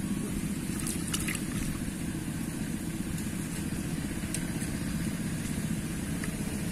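A steady low hum, like an engine running, with a few faint clicks about a second in.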